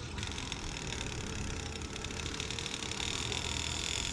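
Compressed air at about 40 PSI hissing steadily through an air chuck into the Schrader valve on a Baxter Performance oil filter adapter. The air is forcing the oil out of the filter housing back down to the oil pan.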